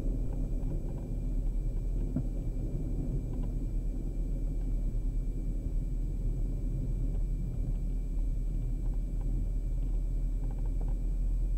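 The twin Austro AE300 turbodiesel engines of a Diamond DA42 NG at idle during the landing rollout, heard in the cockpit as a steady low rumble.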